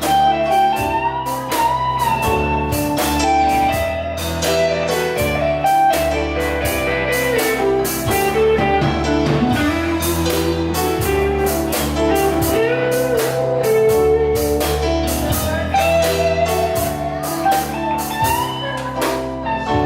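Live blues band playing an instrumental break: a lead guitar line over bass and drums with a steady beat.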